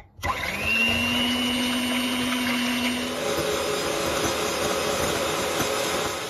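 Vitek electric hand mixer switched on, its motor whine rising as it spins up and then running steadily as the beaters whip eggs, yolks and sugar in a glass bowl into a fluffy sponge-cake batter. Its tone changes about three seconds in.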